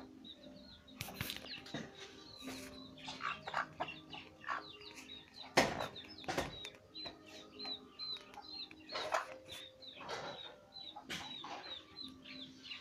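Chicks peeping constantly, short high cheeps several a second, while the mother hen clucks low. Two sharp knocks about halfway through, the first the loudest sound.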